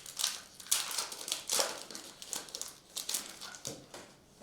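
Trading card pack wrappers crinkling and cards being handled, an irregular run of rustles and crackles that eases off near the end.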